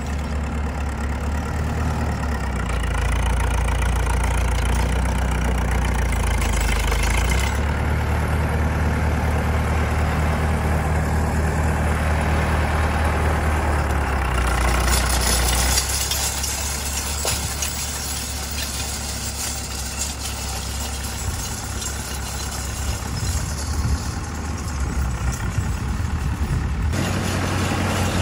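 Heavy farm machinery engine running steadily with a deep low drone, its sound shifting abruptly a few times.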